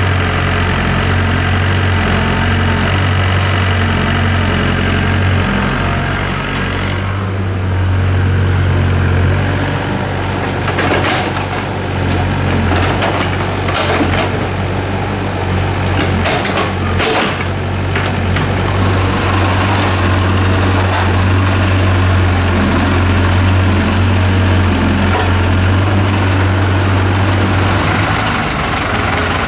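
Doosan DX55W wheeled excavator's diesel engine running steadily, with several sharp knocks partway through as bucket-loads of soil and stones drop into a steel dump-truck bed.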